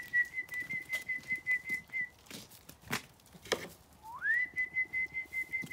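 A person whistling twice. Each whistle slides up to a high note and holds it with a fast flutter for about two seconds, with a couple of sharp knocks in between.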